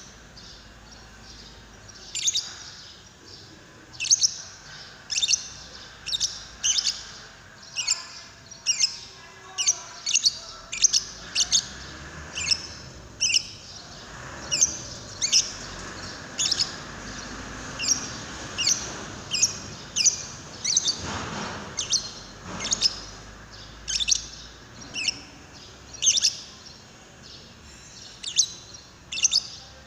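Lovebird chirping: a long run of short, sharp, high-pitched calls, about one or two a second, in a recording meant as a lure to set other lovebirds singing.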